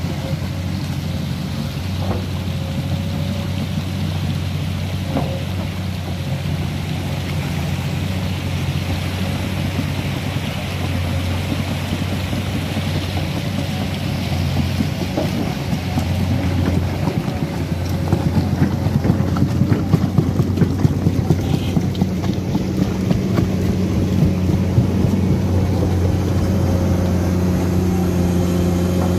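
Komatsu hydraulic excavator's diesel engine running steadily under load with a deep, continuous drone, growing louder and rougher about two-thirds of the way in as it works through deep mud.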